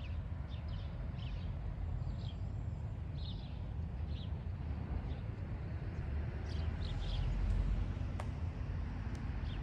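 Small birds chirping in short, repeated notes over a steady low rumble.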